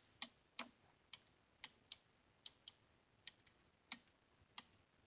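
Faint keystrokes on a computer keyboard, about a dozen sharp clicks at an uneven pace, as a terminal command is typed.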